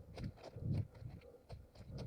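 Footsteps of a runner on forest ground, a quick, uneven run of dull thuds and crunches several times a second.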